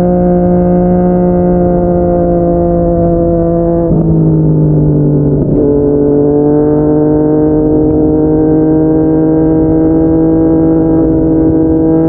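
Yamaha MT-09's inline three-cylinder engine running through a Yoshimura R55 slip-on exhaust as the bike is ridden. Its pitch holds steady, steps down about four seconds in and again a moment later, then climbs slowly.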